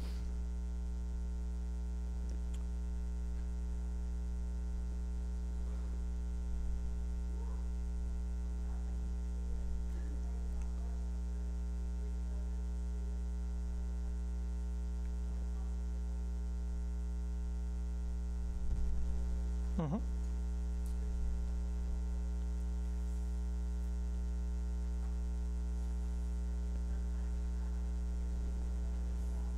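Steady electrical mains hum with its overtones, carried through the recording's sound system. A few faint short sounds come over it, with one brief louder sound about twenty seconds in.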